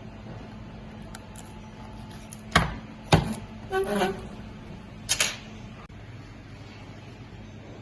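A few sharp clicks and knocks from parts or tools being handled during a repair: two close together near the middle and one more a couple of seconds later. Between them comes a brief squeak, all over a steady low hum.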